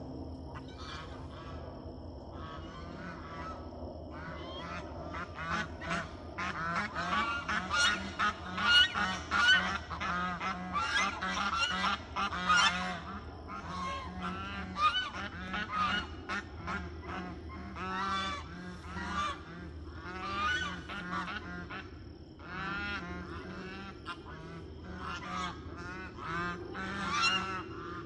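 Domestic geese honking in rapid repeated calls, loudest in a long burst through the first half and again near the end: agitated honking during a fight at a nest, as one goose pecks at another sitting on it.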